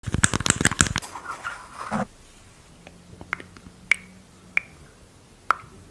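Close-miked small plastic makeup pots: a rapid run of clicks and taps in the first second, then, after a short pause, a handful of single sharp plastic clicks spaced about half a second to a second apart.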